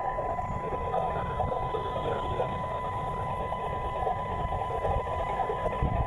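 Unidentified interference on the VHF band, heard as demodulated audio from a Malachite DSP software-defined radio receiver: a steady, rough noise with a constant high whistle running through it.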